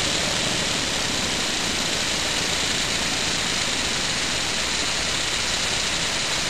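Homemade elbow engine running on compressed air: a steady hiss of air driving and exhausting through its cylinders as it turns over continuously.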